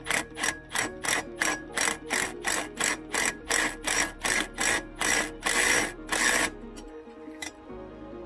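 Ratchet wrench clicking in quick repeated strokes, about three a second, as it tightens the V-band clamp at the turbocharger outlet. The strokes stop about six and a half seconds in, with one last click a second later. Background music plays underneath.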